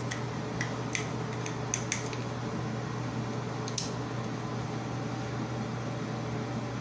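Steady mechanical hum in a small room, with a quick run of light plastic clicks and taps in the first two seconds and one more near four seconds, from handling a liquid foundation bottle and its screw cap.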